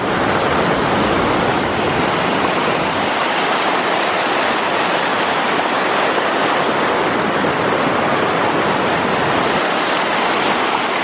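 Fast mountain stream rushing and splashing over rocks, a steady loud rush of water that fades in at the start.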